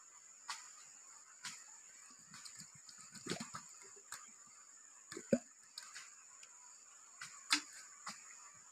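Light knocks and rustles as bamboo tubes are handled and set down on dry ground, with the sharpest knock about five seconds in, over a steady high-pitched hiss.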